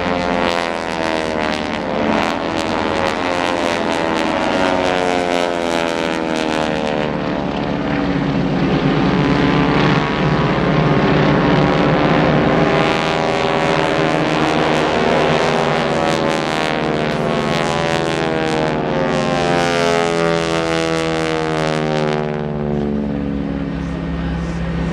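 Several North American T-6 Texan (Harvard) trainers flying in formation, their Pratt & Whitney R-1340 radial engines droning together. Several engine tones slide up and down and cross one another as the aircraft manoeuvre past.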